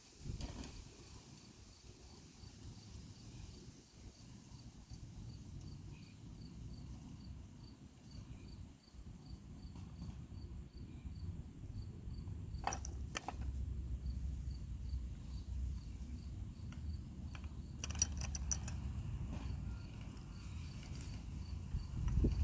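An insect chirping steadily, a high, regular chirp a little over two times a second, over low rumbling noise. A few sharp clicks come in around the middle and a cluster of them later on.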